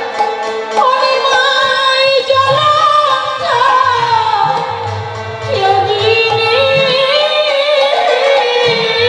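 A woman singing a Bengali devotional kirtan into a microphone, holding long notes that slide from one pitch to the next, over drum accompaniment.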